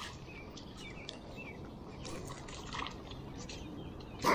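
Hooked catfish splashing at the water's surface during the fight: small splashes and trickling water, with a louder burst of sound about four seconds in.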